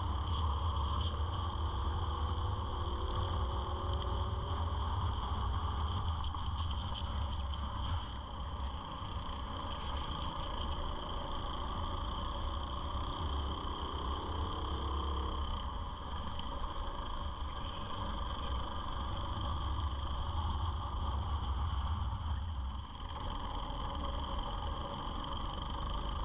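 Go-kart engine running at racing speed, heard through a camera mounted on the kart, its pitch rising and falling as the driver lifts off and accelerates through the corners.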